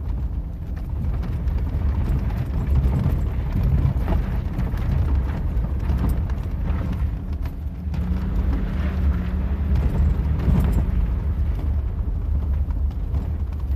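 ATV engine running while riding a rough dirt trail: a steady low rumble with frequent knocks and rattles over bumps.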